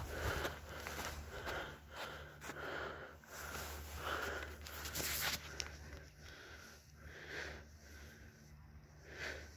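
Quick, sniffing breaths close to the microphone, one to two a second, the strongest about halfway through, over a steady low hum.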